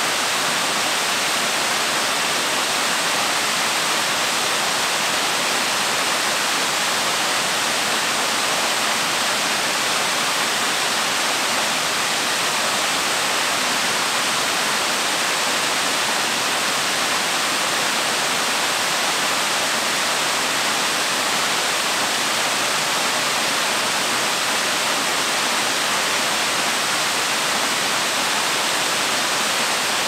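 Waterfall pouring onto rocks: a steady, even rush of falling water, more hiss than rumble.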